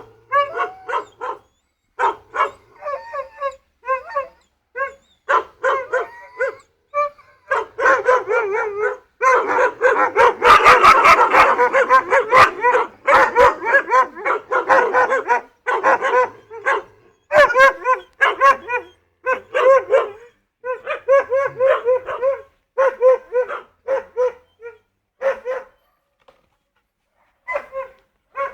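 Several dogs in a makeshift pound barking, in short repeated bursts that pile up and overlap most thickly in the middle, with a run of sharp clicks around ten seconds in. The barking thins out and stops briefly near the end.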